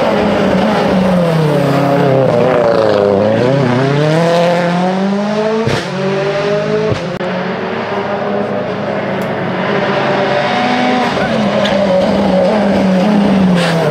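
Ford Fiesta rally cars' turbocharged 1.6-litre four-cylinder engines revving hard at full stage pace. The pitch falls and climbs again through gear changes and braking, with two sharp cracks around the middle, and a second car comes in loud near the end.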